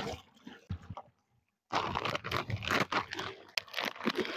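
Irregular crinkling and scraping as achar (pickle) is scooped and added into a pot of beef korma, starting after a short silent gap in the first second and a half.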